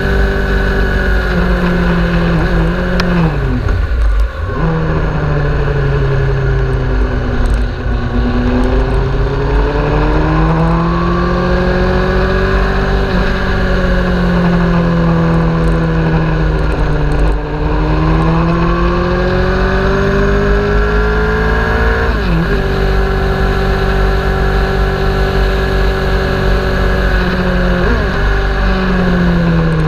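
Sport motorcycle engine under hard track riding, the revs rising and falling with the throttle, with sudden sharp drops in pitch a few seconds in, about three-quarters through and near the end, over a steady low rush.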